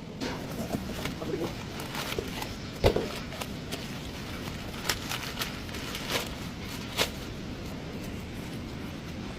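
Scattered sharp knocks and clicks over a steady background noise, the loudest about three seconds in and another near seven seconds in.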